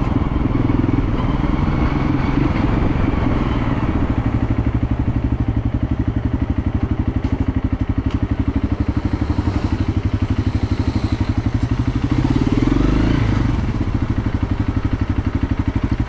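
Motorcycle engine running under way, a steady low pulsing beat of the firing strokes, with a brief swell about twelve seconds in.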